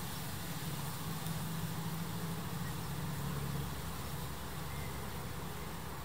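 Steady background noise: a low, even engine-like drone under a constant hiss, like distant motor traffic.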